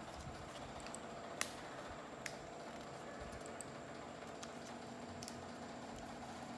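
Old newspaper strip being folded by hand: a few faint, crisp paper clicks and crinkles, the loudest about a second and a half in, over a steady low hum.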